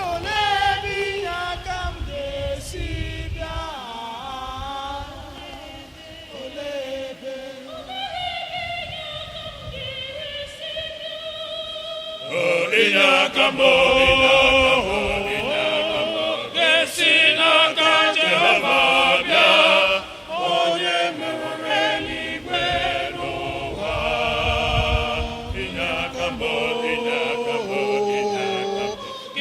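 Church choir singing; more voices join and it grows louder about twelve seconds in.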